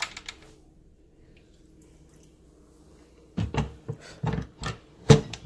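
Instant Pot lid being twisted open and lifted off: a few light clicks at the start, then a cluster of metal clunks and knocks, the loudest about five seconds in. It comes off with no hiss of steam, the pressure having already released naturally.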